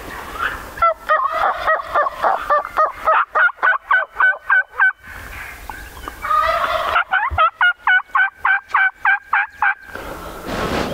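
Turkey yelping: two long runs of rapid two-note yelps, about four to five a second, with a short break around the middle.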